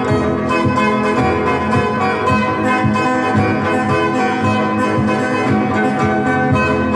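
Live guitar music built up with a loop pedal: guitar played over layered looped parts, with long held tones and a steady pulse. No singing.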